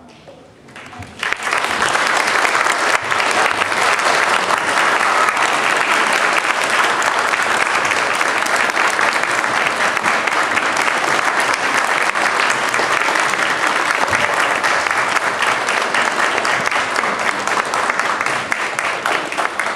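Audience applause breaks out about a second in and keeps up as a dense, steady clapping from a crowd of adults and children.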